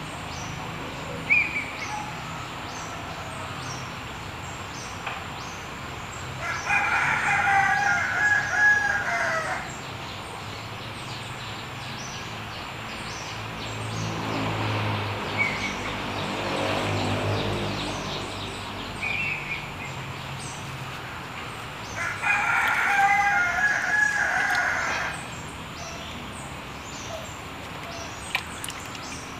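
A rooster crowing twice, each crow lasting about three seconds, the second about fifteen seconds after the first.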